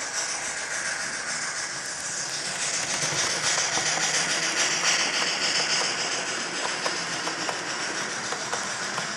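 Model steam train with LokSound sound decoders running past, a steady hiss that swells as the locomotives go by a few seconds in, then the wagons' wheels clicking over the track joints.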